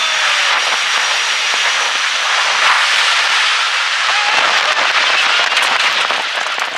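Jet dragsters' turbine engines heard from behind in their exhaust blast: a loud, steady rushing roar with crackling. A thin high whine drops out about a third of the way through, and the crackle thickens toward the end as the roar begins to fade.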